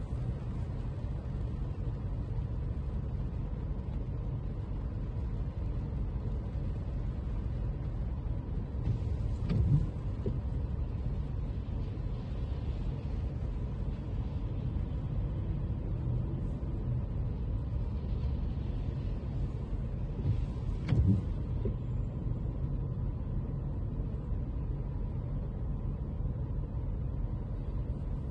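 Car driving: a steady low rumble of road and engine noise, with two brief thumps, one about ten seconds in and one about twenty-one seconds in.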